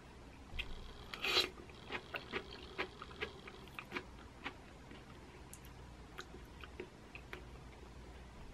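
Close-miked eating sounds of a person slurping and chewing pesto zucchini noodles: faint, irregular wet mouth clicks, a little louder about a second and a half in.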